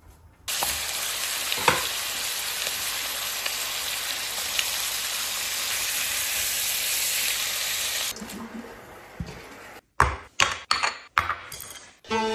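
Pieces of hairtail fish sizzling in a hot frying pan with garlic, ginger and scallion, as a steady hiss that starts about half a second in and stops about 8 seconds in. Several short, sharp knocks follow near the end.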